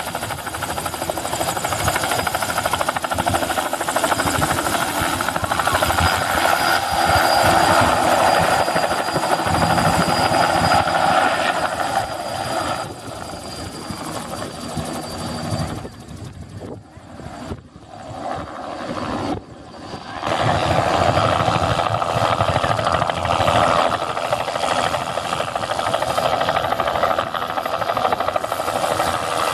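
Bell 206 JetRanger helicopter lifting off, flying close and coming back in to hover: rotor noise with turbine whine, and a steady high whine through the first half. The sound drops for a few seconds past the midpoint, then comes back loud.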